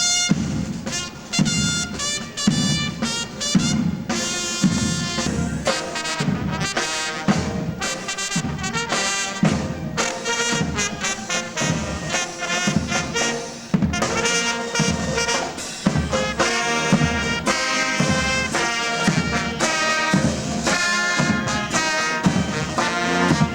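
Military band playing a march (dobrado): brass melody over a steady marching drum beat.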